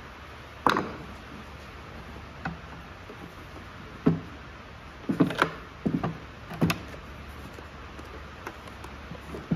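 Scattered light knocks and clicks from hands handling parts on a lawn mower, about half a dozen sharp ones with several bunched together just past the middle, over a steady hiss of rain on the roof.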